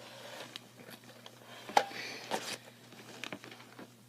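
Handling noise from a plastic Nerf blaster: scattered clicks and knocks, the loudest a sharp click about two seconds in.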